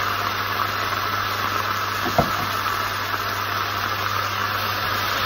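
Steady sizzling hiss of water spinach stir-frying in a hot pan over a low steady hum, with a single knock about two seconds in.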